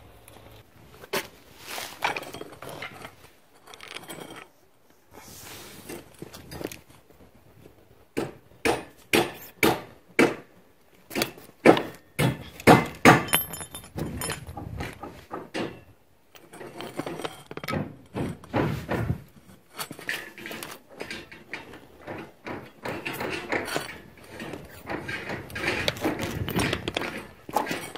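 Old long-handled bolt cutter worked by hand on paving stones: sharp metallic clicks and knocks from its jaws and pivot joints closing on small pieces of metal. The clicks come thickest in a run about a third of the way in, followed by scraping and rustling of handling with further clicks.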